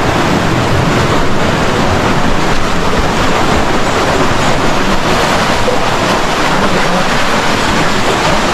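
Loud, steady rush of a fast-flowing river, an even wash of water noise.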